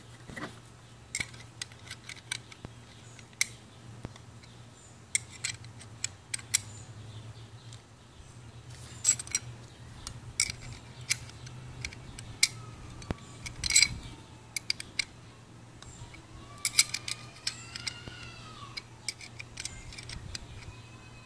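Spanner wrench clicking and scraping against the metal oil-fill cap of a demolition hammer as the cap is screwed back on: irregular sharp metallic clicks, a few at a time, spread through the whole stretch.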